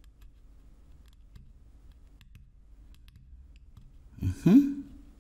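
Faint small clicks of meter probes tapping against a circuit board's pads and edge. About four seconds in comes a short, loud sound, a low thud with a pitch sweeping quickly upward.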